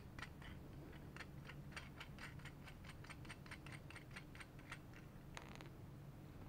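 Faint, rapid clicking of small metal hardware in the fingers: bolts, nuts and washers on a bicycle sprocket's rag-joint assembly being taken off, several light ticks a second.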